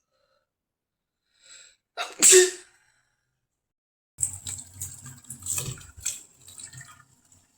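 One sneeze about two seconds in, a loud sharp burst with a brief faint intake just before it. From about halfway on there is a quieter, uneven stretch of noises over a low rumble.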